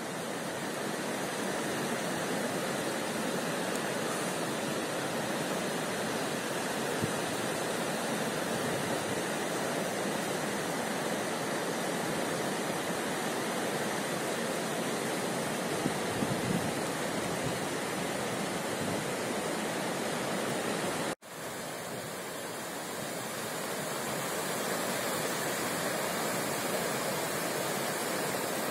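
Steady rushing of the swollen, flooding Guadalquivir river, fast water pouring past the banks and an old river mill. It breaks off for an instant about two-thirds of the way through, then carries on the same.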